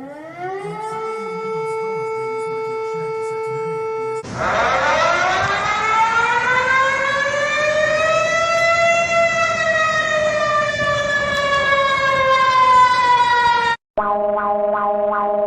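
Civil-defense-style warning siren winding up to a steady pitch. About four seconds in, a louder siren wail takes over, slowly rising and then falling, and cuts off abruptly near the end. A steady chord of alert tones follows.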